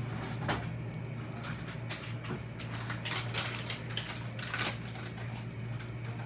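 Stirring utensil scraping and clattering against a kadhai as gram flour is roasted in ghee, in irregular strokes, over a steady low hum.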